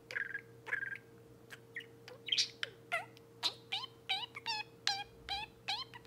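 Budgerigar chirping: scattered short calls, then from about halfway a quick run of repeated rising chirps, about three a second.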